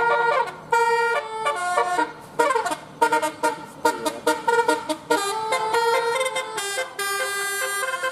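Basuri telolet bus horn, a multi-tone horn playing a quick melody of short, choppy toots with clicks between the notes, holding a longer chord near the end.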